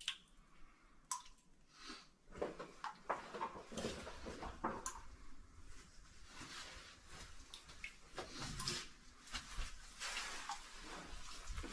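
Cavers moving through a cave passage: irregular footsteps, scuffs, scrapes and small knocks of boots and gear on rock and mud.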